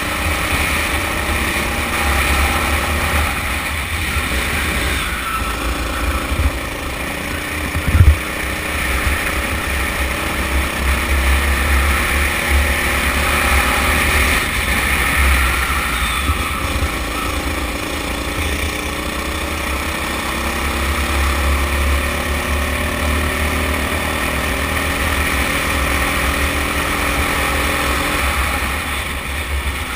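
Honda engine of a rental go-kart running under load, its revs climbing several times along the straights and dropping back into the corners, with heavy wind rumble on the microphone. A single sharp knock about eight seconds in.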